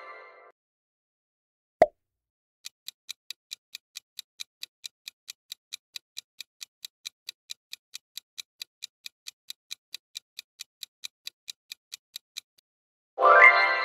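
Countdown-timer clock-tick sound effect, ticking evenly about four times a second for nearly ten seconds after a single sharp click about two seconds in. Near the end an answer-reveal chime starts ringing and dies away.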